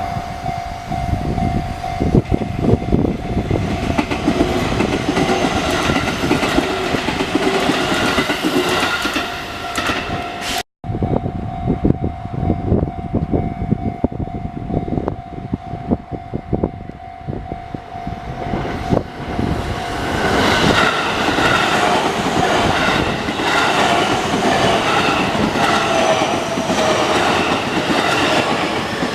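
A train running over a railway level crossing, its wheels clattering rapidly over the rail joints, while the crossing's warning bell holds a steady high tone. The sound cuts out for an instant about eleven seconds in, and near the end the train sound rises in pitch with several tones.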